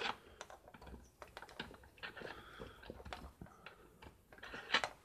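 Light clicks, taps and scrapes of small metal parts and wiring being handled by hand while a part is worked into place on a Honda Dio scooter engine's crankcase, with a louder rustling scrape near the end.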